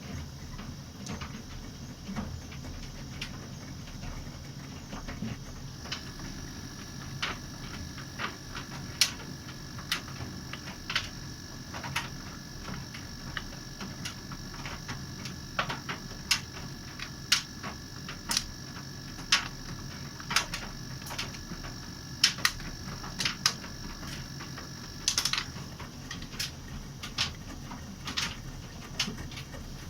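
Bosch laundry machine running: a low steady hum with irregular clicks and knocks from its turning drum, and a faint steady high tone from about six seconds in until near the end.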